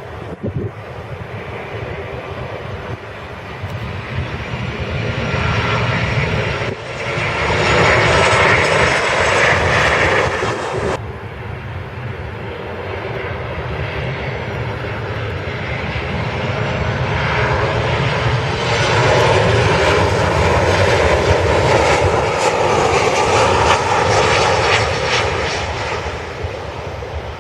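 Jet airliner engines roaring as aircraft pass near the airfield. The roar swells and breaks off abruptly about eleven seconds in, then a second long, loud roar builds and eases off near the end.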